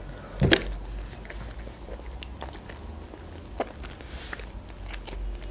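Close-miked eating: a bite into a soft boiled potato about half a second in, then quiet chewing with small, scattered mouth clicks.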